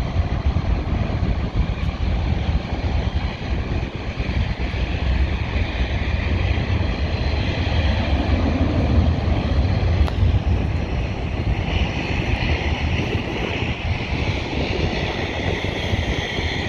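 Airliner jet engines running with a steady heavy rumble; a higher whine comes in from about twelve seconds in.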